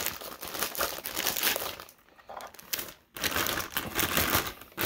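Clear plastic packaging bag crinkling as it is handled and pulled off the unit it wraps, in irregular bursts with two brief pauses around the middle.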